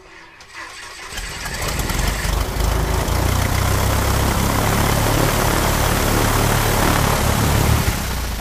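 Aircraft piston engine starting: it builds up over the first two seconds, then runs steadily with an even low pulsing and fades out near the end.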